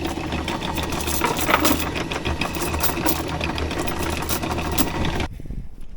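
Electric anchor windlass running, its motor humming while the chain clatters rapidly over the gypsy, stopping abruptly about five seconds in.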